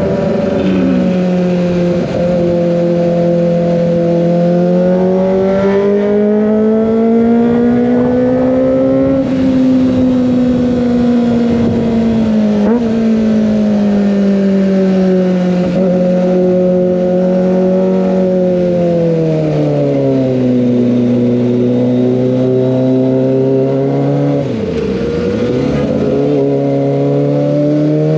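Kawasaki ZX25R's inline-four engine through an Over Racing GP-RS full-system exhaust, running at steady revs while riding, its pitch rising and falling slowly with the throttle. It drops to a lower note about twenty seconds in and climbs again near the end.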